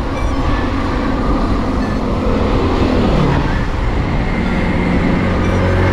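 Road traffic heard while cycling along a road: a steady low rumble, with a passing motor vehicle whose pitch drops about halfway through.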